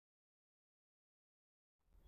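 Near silence: the track is dead quiet, with a faint hiss of room noise fading in at the very end.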